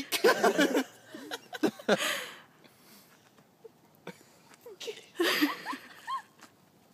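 Short bursts of people's voices without clear words, in the manner of exclamations or laughter: at the start, again around two seconds in, and again around five seconds in, with a quiet stretch between.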